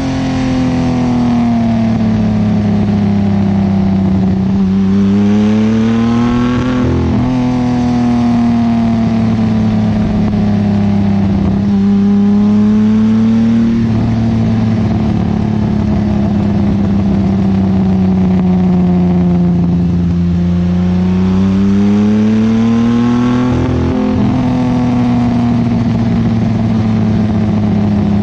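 Datsun 280Z's custom-built L28 straight-six running through an Abarth muffler, its pitch drifting gently up and down several times as the revs rise and fall a little.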